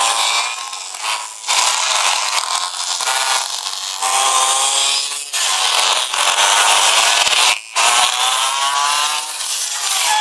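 Small two-stroke pocketbike engines revving hard, a high buzzing whose pitch rises and falls as the riders open and close the throttle through the cones, with brief dips about a second in and again after seven seconds.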